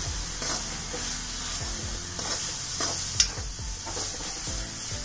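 Slotted metal spatula scraping and stirring a dry paneer and milk-powder mixture in a hot metal kadai, in repeated strokes over a light sizzle. One sharp clink of metal on metal comes about three seconds in.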